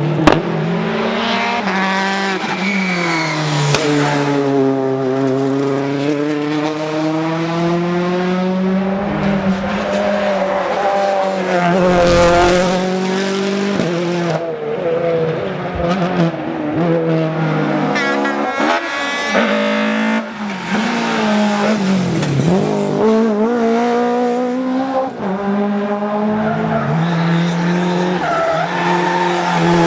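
Rally car engines revving hard, their pitch repeatedly rising and falling through gear changes as the cars drive the stage at speed. A loud rushing burst comes about twelve seconds in.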